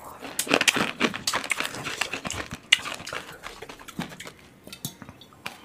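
A person gulping water from a steel tumbler after very spicy noodles: a quick run of short, noisy swallows and breaths that thins out after about three seconds into scattered small sounds.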